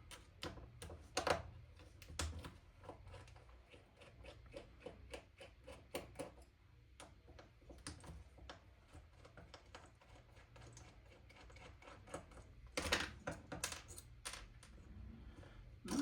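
Irregular small clicks and taps of metal and plastic parts handled during disassembly of an airsoft rifle's hop-up chamber, with a louder run of clicks near the end.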